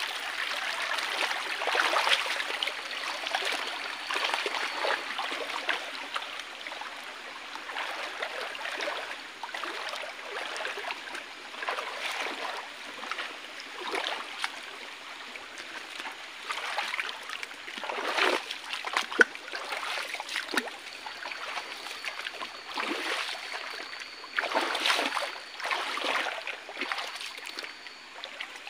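Shallow stream water running and trickling over rocks, broken by irregular splashes as bare feet wade through it, with a cluster of splashes near the middle and another near the end.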